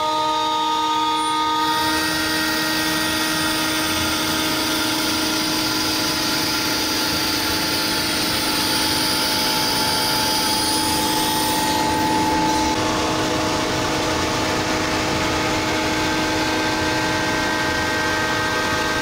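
CNC router spindle running with a steady whine of several tones. A louder rushing noise from the cutting and dust extraction joins about two seconds in and drops away about two-thirds of the way through.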